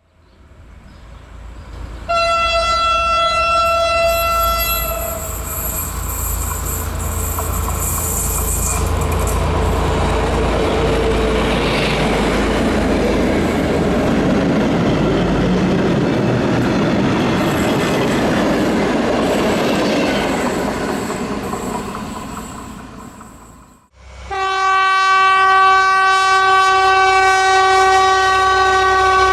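SU45 diesel locomotive sounding its horn for a couple of seconds, then passing with a loud engine rumble and wheel clatter that builds and fades away. After a sudden cut, a long steady horn blast.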